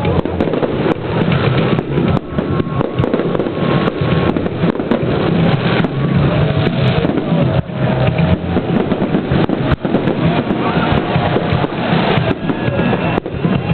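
Fireworks display: many sharp bangs and crackles in quick succession over a constant loud din.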